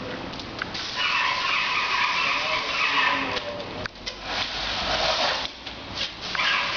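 Airless paint spray gun hissing as it sprays paint, in long passes with short breaks about four seconds in and again near six seconds in, as the trigger is released.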